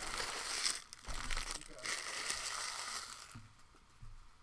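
Foil trading-card pack wrappers being crumpled and handled on a table: a crackling crinkle for about three seconds, then a couple of soft thumps.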